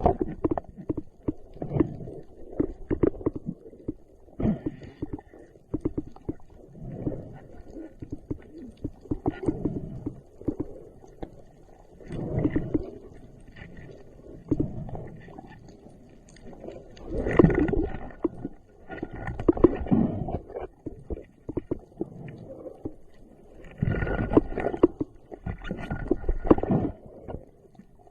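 Muffled water gurgling and sloshing as picked up by a camera in the water, coming in repeated bursts every couple of seconds. The loudest bursts come around the middle and near the end.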